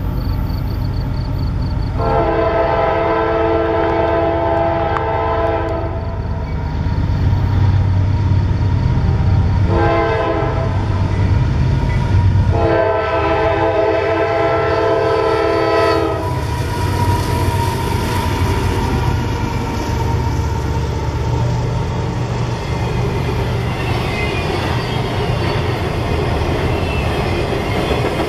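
Diesel freight locomotive's air horn sounding a long blast, a short one and another long blast over the low rumble of its engines as it approaches. After the horn the train rolls past with steady wheel-on-rail noise.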